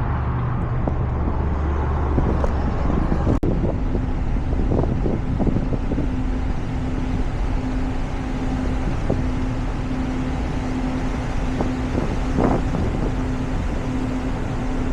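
Steady rushing noise of a vehicle on the road mixed with wind on the microphone, with a brief dropout about three and a half seconds in.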